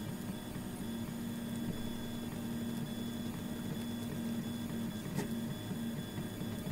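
Printrbot Simple 3D printer printing: its stepper motors hum at steady pitches that jump up and down as the head and bed change moves. A single tick about five seconds in.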